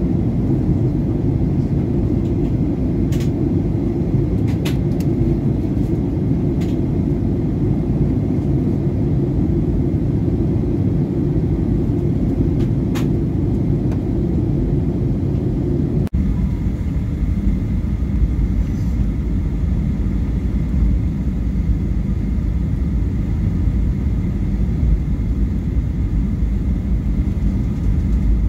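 Steady rumble inside the cabin of a Boeing 737-800 descending on approach, from its engines and the airflow over the fuselage, with a few faint clicks. About halfway through the sound changes abruptly, turning deeper and duller, with a faint steady high tone on top.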